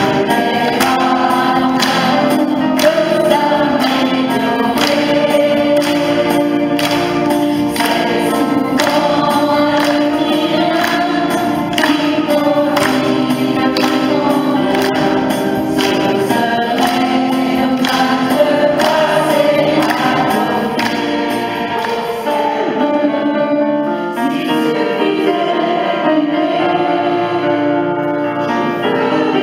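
Mixed choir of women's and men's voices singing with electronic keyboard accompaniment and a steady beat. Near the end the beat drops away, leaving voices and keyboard.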